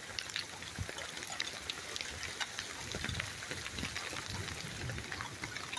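Steady rain falling, with many scattered individual drops ticking close by.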